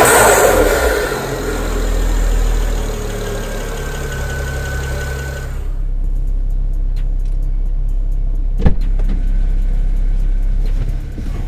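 BMW N54 twin-turbo straight-six, freshly fitted with a new charge pipe and blow-off valve, easing off a rev in the first second and settling to a steady idle. About halfway through, the idle is heard from inside the car's cabin, with light clicks and a single sharp knock near the end.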